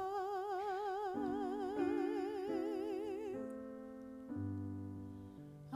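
A woman's voice holds a long sung note with a wide vibrato over piano chords, ending a little over three seconds in; the piano then plays on alone with slow, held chords that grow softer.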